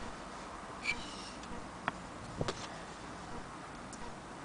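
A few light clicks from a hand-held antique Willcox & Gibbs sewing machine being handled, with one brief metallic ping about a second in and two more clicks later, over faint background hiss.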